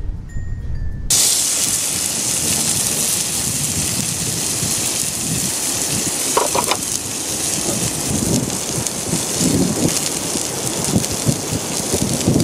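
Beef steak sizzling on a hot cast-iron griddle over a small wood-fire stove: a steady hiss that starts suddenly about a second in, after a moment of background music, with some crackling from the fire beneath.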